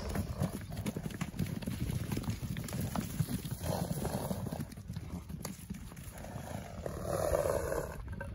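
Hooves of several horses and ponies thudding irregularly on soft dirt and straw as they trot and canter close by, with a louder rushing noise about seven seconds in.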